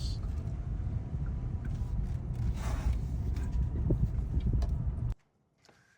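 Road and engine noise inside a moving car, a steady low rumble, which cuts off suddenly about five seconds in.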